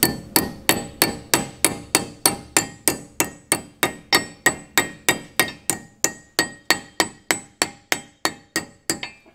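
A hammer tapping a brass punch in a steady, even rhythm of about three strikes a second, each with a short metallic ring, seating the small dust cap onto a wheel hub. The blows grow lighter toward the end.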